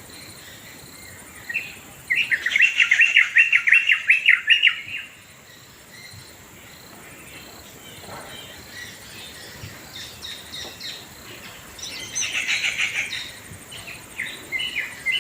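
Birds calling in a rapid series of repeated notes, loudest for about three seconds early on and again in a shorter run later, with scattered chirps near the end. A steady high insect trill runs underneath.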